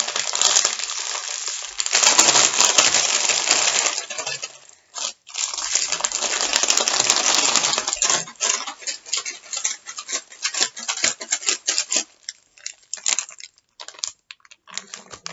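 A Doritos bag being shaken, the tortilla chips rattling inside and the foil bag crackling, to mix the hot sauce through the chips. Two long bouts of hard shaking, then lighter, scattered rattles and crinkles from about eight seconds in.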